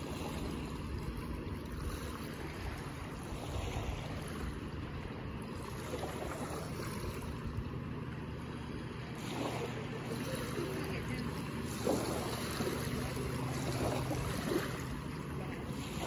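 Small waves lapping and washing up a sandy shore, a steady rush of surf that swells and eases, with wind buffeting the microphone.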